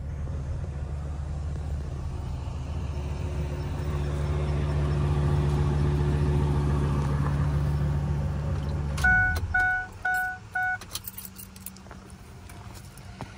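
Ford 6.8-litre V10 in a 2003 F450 idling with a steady low rumble, then switched off about nine seconds in. Right after it stops, the truck's warning chime beeps four times, followed by a few clicks and rattles.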